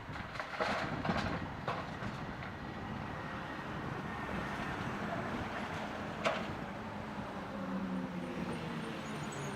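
Heavy construction machinery running, with a cluster of metallic clanks and rattles in the first couple of seconds and one sharp knock about six seconds in. A steady engine note comes up near the end.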